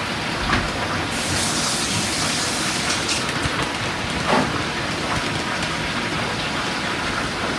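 Steady sizzling of chicken frying in hot oil, with a few light clinks of a spoon against a metal saucepan.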